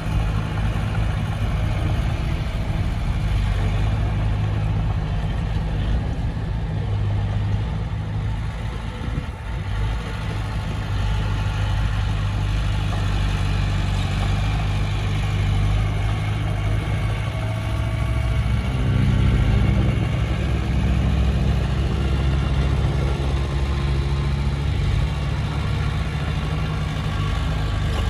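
Heavy diesel engine of earthmoving machinery running steadily under load. About two-thirds of the way through its note shifts up and grows a little louder.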